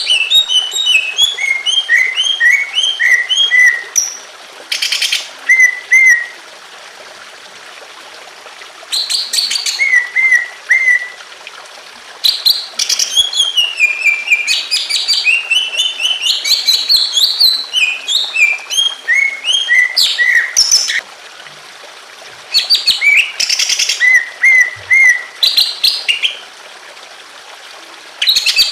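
Green leafbird (cucak ijo) singing loud phrases of quick, sharp chirps and whistled notes, with pauses of a second or more between phrases, over a steady trickle of water.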